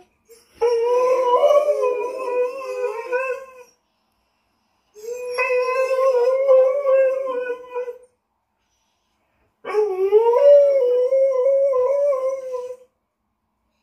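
Dog howling: three long howls of about three seconds each, the pitch wavering, with short silences between them; the third starts with an upward slide.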